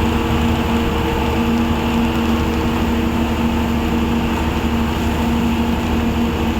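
A motor vehicle running steadily: a constant engine hum with a few steady tones over an even rushing noise.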